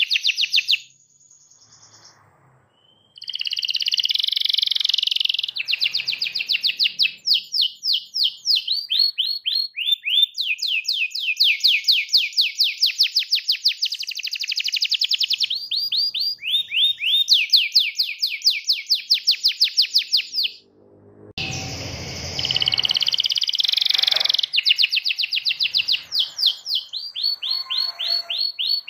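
Domestic canary singing a long song of fast rolled trills, each roll a rapid run of identical high notes, changing from one roll to the next. The song stops for about two seconds near the start, and a lower rustling noise sits under it briefly about three quarters of the way through.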